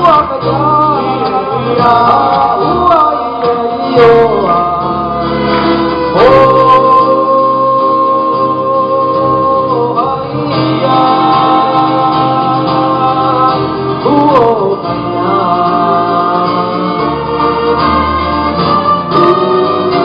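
A group of men singing together in harmony, a live pop-folk song with long held notes.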